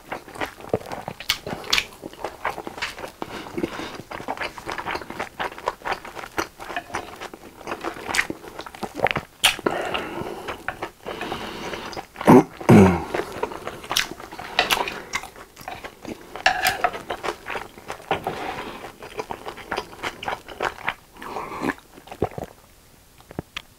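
Close-miked chewing and slurping of japchae (sweet-potato glass noodles with vegetables and beef): irregular wet mouth clicks and smacks. About halfway through comes one louder, low sound that slides down in pitch, and the last couple of seconds are quieter.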